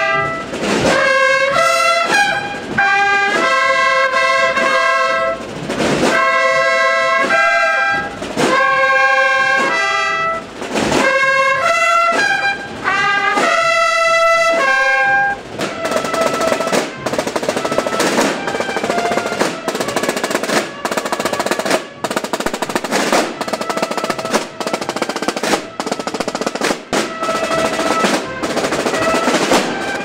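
Bugles play a loud fanfare over drumbeats. About halfway through, the brass gives way to massed snare drums, playing rolls and beats.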